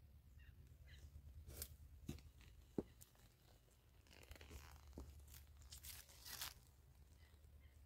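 Faint footsteps crunching and rustling on grass and dry leaves, with one sharp click a little under three seconds in, over a low steady hum.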